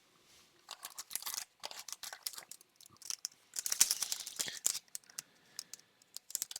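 Plastic card sleeves and foil booster-pack wrappers crinkling and rustling as trading cards are handled, in a run of short crackles that is busiest around the middle.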